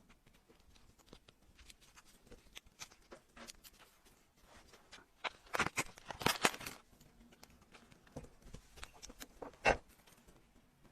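Small metal clicks and light scrapes of watchmaker's tools and parts being handled on an old watch, with a burst of louder clicking about halfway through and one sharp click near the end.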